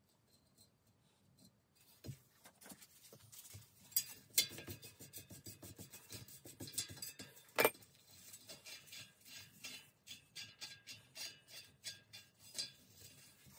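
Metal grating and a quick run of small clicks as fittings are worked off the rusty, grime-packed axle of a vintage 3-speed bicycle's rear hub by hand. It starts about two seconds in, with a few sharper clicks around four seconds and again near eight seconds.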